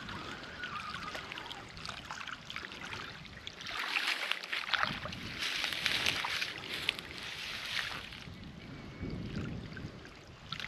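Wind buffeting the microphone, with water splashing and lapping close by; the splashing is loudest from about four to eight seconds in.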